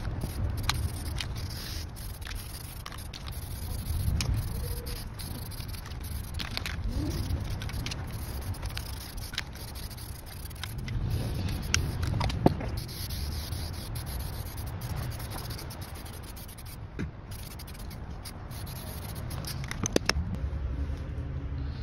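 Aerosol spray-paint can being shaken, its mixing ball clicking, and spraying paint with a hiss, with scattered sharp clicks throughout.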